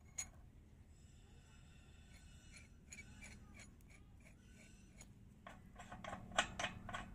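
Metal clicks and rattles of a homemade bicycle-chain wrench as it is handled and lifted off a rusty hub nut. There are scattered single clicks, then a quick run of louder clicks near the end.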